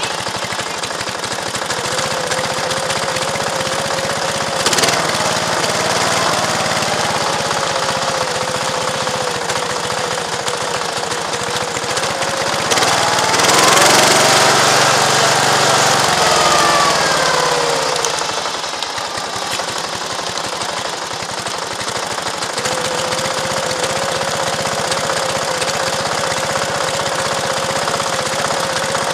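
Ride-on scale railroad speeder's small engine running steadily with a rapid, even chatter as it travels along the track. It grows louder for a few seconds in the middle, with tones that rise and fall, as the speeder passes a locomotive on the next track.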